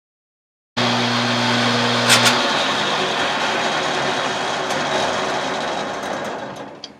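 Table saw running, starting suddenly about a second in, with a sharp click about two seconds in. Its motor hum stops soon after, and the blade's whir fades away over the next few seconds as it spins down.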